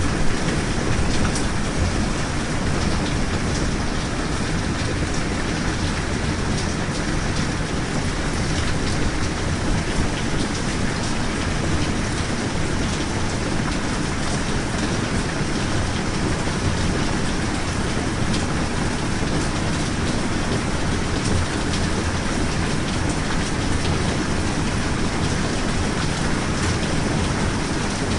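Steady rain ambience: an even hiss of rainfall with scattered faint ticks of single drops.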